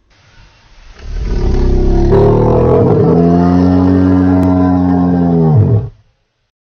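Dinosaur roar sound effect: one long, low roar that builds up over the first second, holds a deep steady pitch, then drops in pitch and cuts off near the end.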